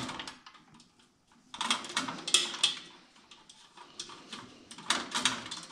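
Light clicks and scraping of gloved hands handling metal parts as an aluminium intercooler is held against its lower mounting bracket. The sounds come in two short clusters, one a couple of seconds in and one near the end.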